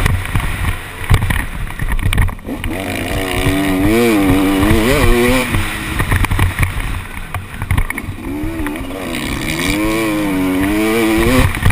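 KTM SX 250 two-stroke motocross bike engine revving hard on the track, heard from the rider's helmet. Its pitch rises and falls again and again with the throttle in two stretches, over a steady low rumble.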